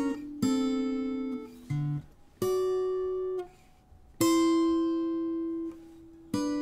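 Acoustic guitar playing a slow blues phrase: five separately picked notes and chords, each ringing for about a second and then damped, with a short low note about two seconds in.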